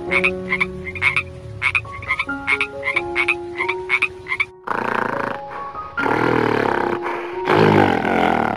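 Toad calling in a quick series of short croaks, about three a second, over background music with mallet-like notes. After about four and a half seconds a louder, rough animal call takes over in three long stretches.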